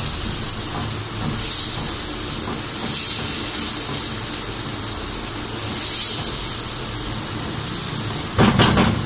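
Onions, tomatoes and ginger-garlic paste sizzling steadily in hot oil and butter in a nonstick pan as they are stirred with a silicone spatula; the sizzle swells a few times with the stirring. A brief knock near the end.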